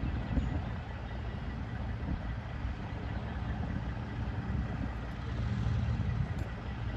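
Diesel engines of heavy-haul tractor trucks running, a steady low rumble.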